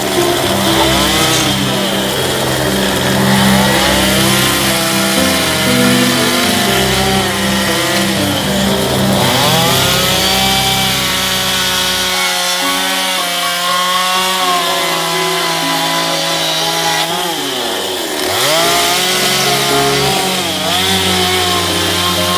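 Chainsaw with a Stihl bar cutting into soft western red cedar, its engine speed swinging up and down as the throttle is worked. The pitch dips sharply and climbs back twice, about halfway through and again near the end.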